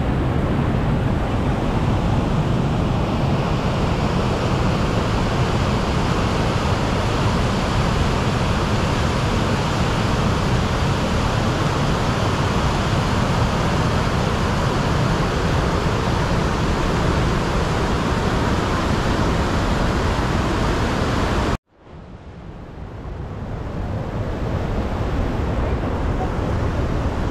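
Steady rushing of a fast mountain river's rapids. About three-quarters of the way in it cuts off abruptly and fades back up over a couple of seconds.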